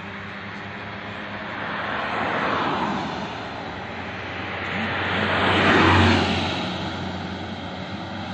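Two road vehicles driving past close by, one after the other: a car, then a small truck. Each pass swells and fades, and the truck's is the louder, with a low engine hum at its peak.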